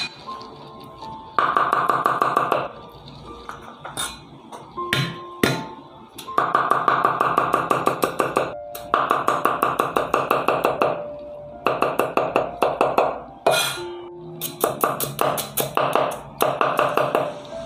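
A cleaver chopping rapidly on a wooden chopping block, mincing garlic and shallots in several runs of quick strokes with short pauses between them, over background music.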